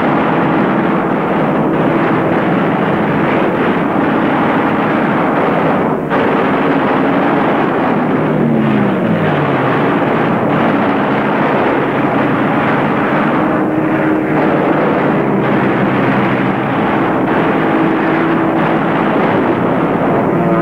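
Propeller aircraft engines running in a steady, dense drone on a muffled old film soundtrack, with an engine tone dropping in pitch about eight seconds in.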